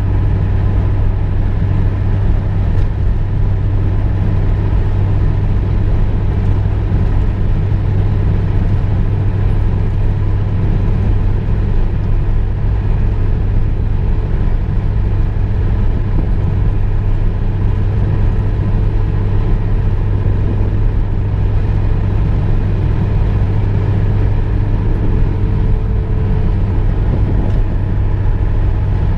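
Car driving at a steady pace: a constant low engine and road rumble.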